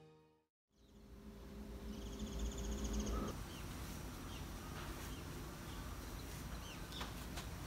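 Background music cuts off, then outdoor ambience: a low steady rumble with a short rapid trill about two seconds in and scattered bird chirps.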